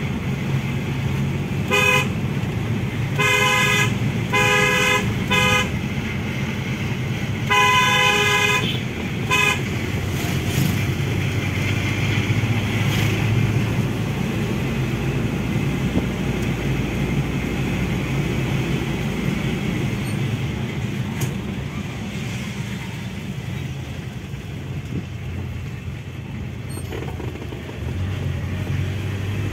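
Mahindra Bolero's horn tooting in short blasts over its engine running inside the cabin: a single toot about two seconds in, three quick toots around four seconds, then a longer blast and one short one near eight to ten seconds. After that only the steady engine and road noise are heard.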